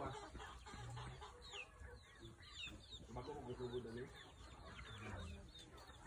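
Young chickens clucking and peeping: short high peeps that fall in pitch, coming thick about two to four seconds in, over lower clucks.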